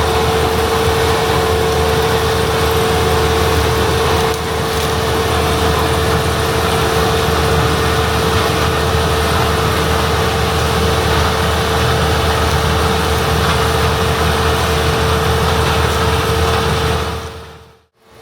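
International Harvester 1660 combine's DT466B diesel running steadily while harvesting corn, with a constant whine over a low engine hum. The sound fades out briefly near the end.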